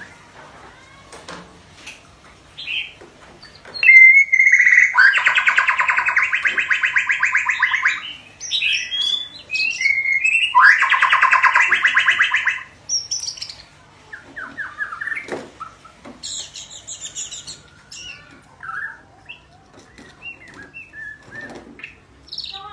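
Young white-rumped shama practising its song: scattered short chirps and whistles, with two loud, rapid buzzy trills of two to three seconds each, about a quarter of the way in and again near the middle, and a higher fluttering phrase a little later.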